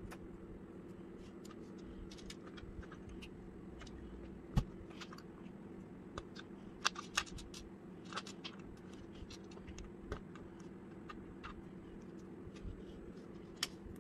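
Small plastic Lego bricks clicking and tapping as they are handled and snapped together, and picked up from a tabletop. The clicks come at irregular intervals, with a heavier knock about four and a half seconds in and a quick run of clicks around seven seconds, over a faint steady hum.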